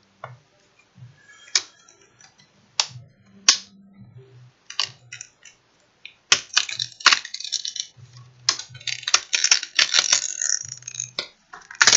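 Plastic snap-in clips of a laptop screen bezel cracking and clicking free as the bezel is pried off the lid by hand. It is a string of sharp separate snaps, sparse at first and coming thick and fast from about six to eleven seconds in.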